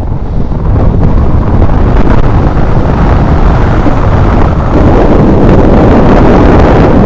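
Wind buffeting an action camera's microphone as a mountain bike runs down a paved lane at speed: a loud, steady rushing rumble that steps up about a second in and grows heavier around five seconds.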